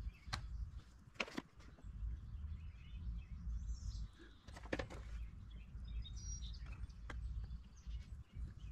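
Small birds chirping now and then over a steady low rumble, with about four sharp knocks spread through.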